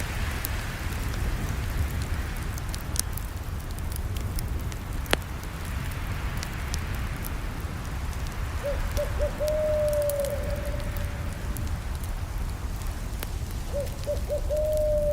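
Campfire crackling: a steady hiss and low rumble with scattered sharp pops. About two-thirds of the way in, and again near the end, a bird calls: a few short notes, then one long held note that dips at the end.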